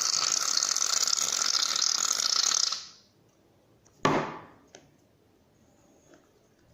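Aerosol can of shaving foam spraying, a loud steady hiss that stops about three seconds in. About a second later, a single short sharp knock.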